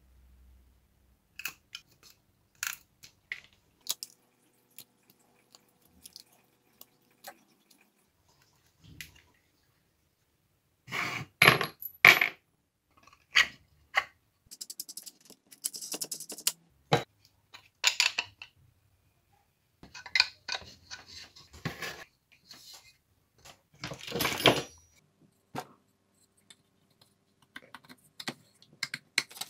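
Small metal parts being handled: a threaded rod, nuts and washers clinking and rattling against the wooden arms and bench as they are fitted. Scattered single clicks, with louder clattering spells about a third of the way in and again in the last few seconds, and a stretch of fine rapid ticking in the middle.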